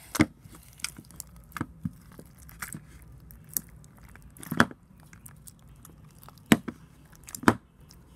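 Homemade glue slime activated with Tide detergent, squeezed and pulled by hand in a plastic tub: irregular clicks and squelches, with a few louder pops in the second half.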